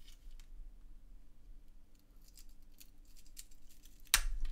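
Small scattered clicks and scrapes of a vape mod's casing and parts being handled and taken apart, with one louder sharp click about four seconds in.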